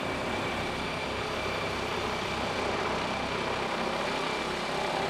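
Helicopter hovering with a utility pole slung beneath it on a long line: steady rotor and engine noise with a thin, steady high whine.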